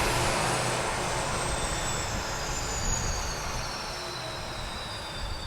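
RC model plane's motor whining high over rushing air noise, its pitch falling slowly and steadily as the sound eases off a little.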